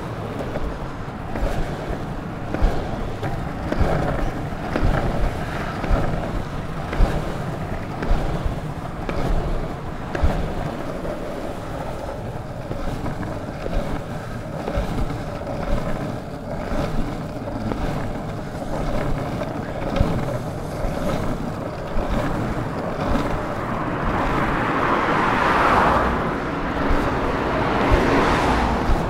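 Longboard wheels rolling over pavement: a steady rumble broken by sharp knocks every second or so. A louder rushing sound swells up near the end.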